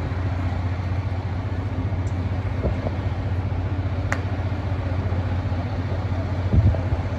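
Crane truck's diesel engine idling steadily, with a sharp click about four seconds in and a low thump near the end.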